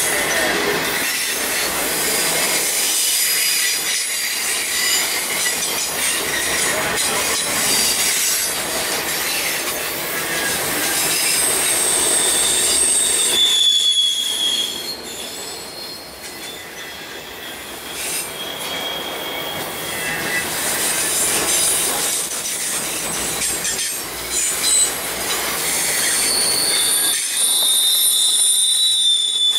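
Loaded autorack cars of a BNSF freight train rolling past on a curve: steady rumble and clatter of steel wheels on rail, with high-pitched wheel flange squeal that comes and goes. It eases off for a few seconds midway, and the squeal is loudest near the end.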